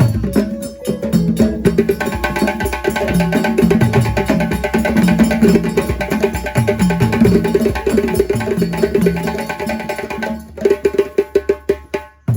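Loud percussion-driven music: quick, dense drum and wood-block-like strikes over a stepping bass line. About ten and a half seconds in, the bass drops out, leaving a run of sharp separate drum hits before a brief pause.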